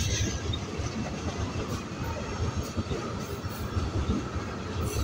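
Tank cars of a manifest freight train rolling past close by: a continuous rumble of steel wheels on rail, with irregular clatter as the wheels cross the rail joints.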